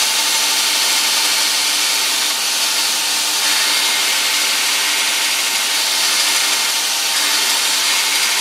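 Homemade 2x72 belt grinder, driven by a treadmill motor and running an 80-grit belt, grinding a piece of quarter-inch steel plate: a steady hiss of steel on the abrasive over the even hum of the motor and belt.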